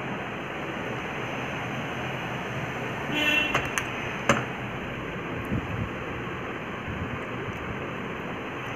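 Steady background hiss with faint light scraping of a steel spoon spreading sauce over soft bread on a wooden board. A brief pitched sound about three seconds in and a sharp click about a second later stand out above it.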